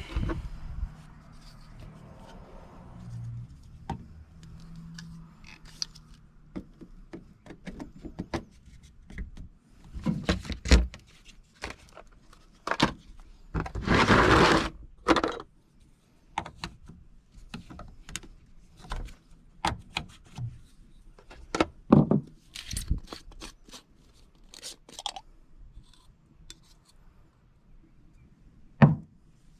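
Scattered clicks, knocks and scrapes of tools and PVC drain fittings being handled and fitted, with one longer scraping rush about halfway through.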